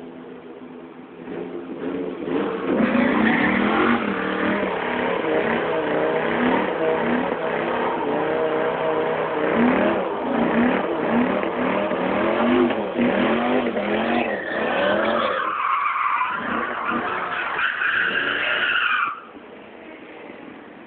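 Dodge Ram SRT-10's 8.3-litre V10 idling, then revving hard about a second and a half in for a burnout, the rear tyres spinning on the pavement, the engine note rising and falling. Near the end a loud tyre squeal as the truck slides round, cutting off suddenly and leaving the engine idling.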